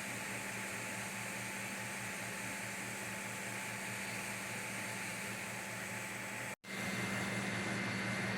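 Creality CR-M4 FDM 3D printer running, its fans and motors making a steady whir with a low hum. It cuts out abruptly for an instant about two-thirds through, then returns slightly louder with a thin, steady high whine.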